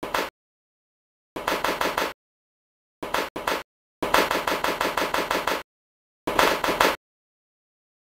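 Cartoon rapid-fire gunshot sound effect in several short bursts, each a quick run of shots about nine a second. The longest burst, about four seconds in, lasts about a second and a half.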